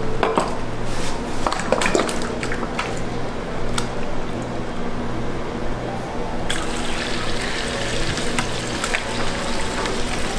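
Butter crackling and popping on a hot flat-top griddle over a steady low hum. About six and a half seconds in, beaten egg with shredded vegetables is poured into a metal frame on the griddle and a steady sizzle starts.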